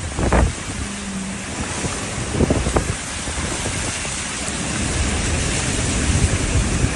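Steady rushing noise of floodwater, with gusts of wind buffeting the microphone.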